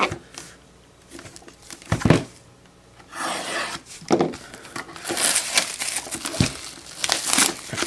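Plastic wrap on a trading-card hobby box being handled, torn and crinkled in irregular stretches, with a soft thump about two seconds in.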